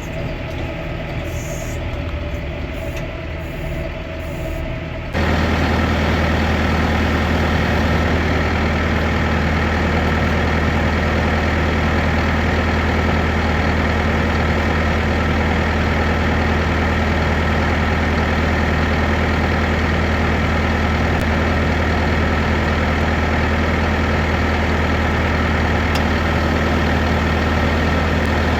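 Engine running steadily, quieter for about the first five seconds, then stepping up suddenly to a louder, even drone with a deep low hum that holds to the end.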